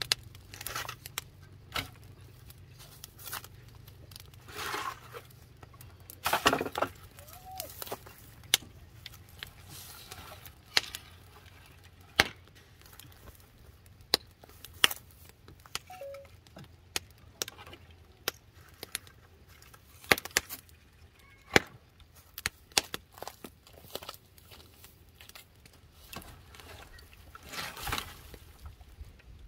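Old wooden boards and sticks being handled and dropped on a debris pile: scattered sharp knocks and clatters, with a few longer scraping rushes, the loudest about six seconds in and near the end.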